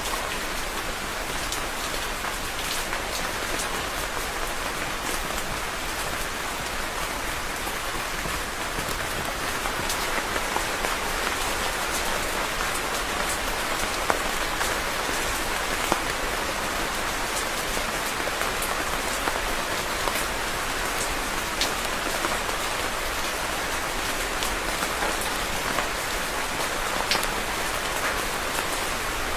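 Steady rain falling and pattering on a surface, with individual drops ticking through an even hiss.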